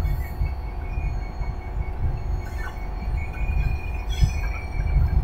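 Diesel-electric locomotive heard from inside its cab while running on the line: a steady low rumble of the engine and wheels on the track, with a faint steady high whine over it.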